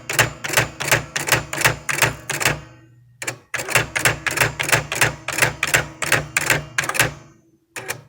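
Nakajima WPT-150 electronic typewriter printing a run of letters: rapid sharp strikes about five a second over a low motor hum. There is a brief pause about three seconds in and two last strikes near the end.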